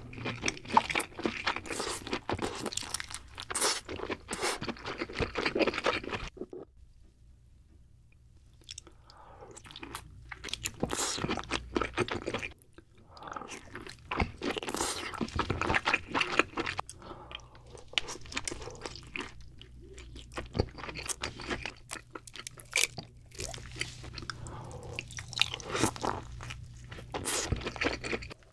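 Close-miked chewing and biting of king crab meat, with dense crunching and crackling. There is a pause of about two seconds some seven seconds in.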